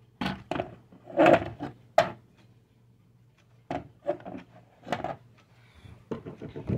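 A wall clock being handled and hung on the wall, knocking and scraping against it in three bursts of irregular knocks.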